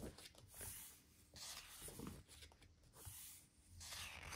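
Faint paper rustling: a photobook's pages being turned and brushed flat by hand, heard as several soft swishes.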